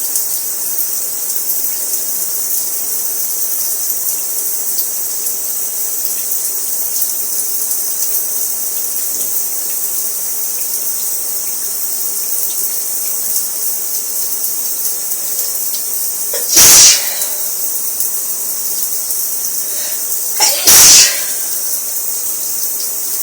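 Shower water running in a steady hiss, with two loud sneezes from a person with a cold, the first about two-thirds of the way in and the second some four seconds later.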